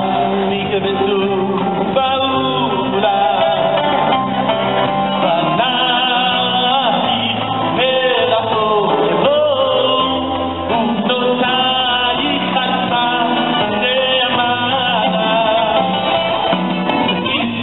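Live music: a man singing into a microphone over a band, his voice sliding and ornamenting the melody.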